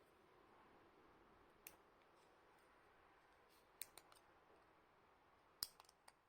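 Near silence, broken by a few faint, sharp clicks or taps of small hard objects: one about a second and a half in, two close together past the middle, and a quick cluster near the end.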